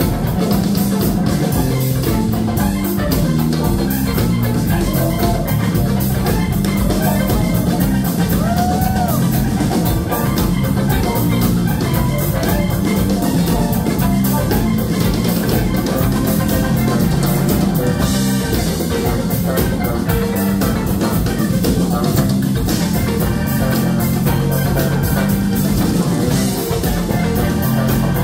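Live rock band playing: electric guitars, bass, keyboards and a drum kit keep a steady beat, with the bass line and drums loudest.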